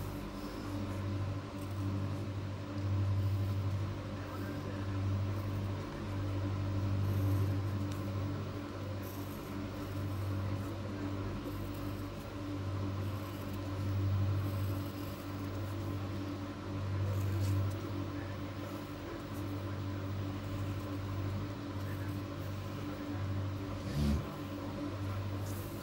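A steady low motor hum that swells and fades every few seconds, with a single brief knock near the end.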